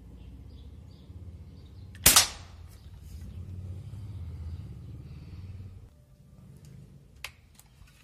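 A single shot from a Barra 1866 Cowboy lever-action air rifle about two seconds in: one sharp crack with a short tail. A much fainter click follows near the end.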